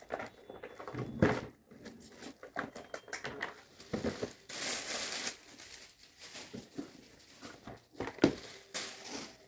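Gift wrapping crinkling and tearing as a present is unwrapped by hand, in irregular rustles with a few knocks, and a longer tear about halfway through.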